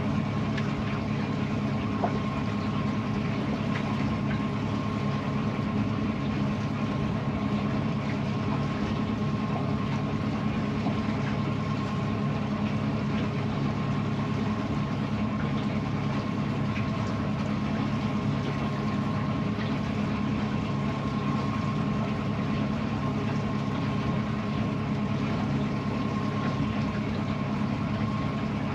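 An engine running steadily at a constant low speed, with a thin steady whine above its hum.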